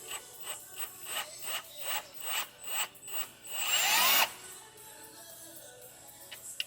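Power drill turning a bolt extractor in a broken sensor bolt, its trigger pulsed in short surges about two or three times a second, then run up with a rising whine for about half a second before stopping abruptly. The extractor is rounding out instead of biting.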